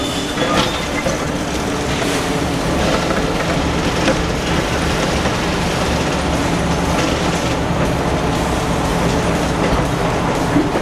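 Diesel engine of a Liebherr demolition excavator running steadily under load while its hydraulic crusher jaw bites into a reinforced-concrete slab, with scattered cracks and crunches of breaking concrete and falling debris.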